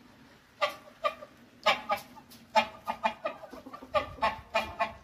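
Farmyard poultry calling: a run of short, repeated calls, about three a second, starting about half a second in.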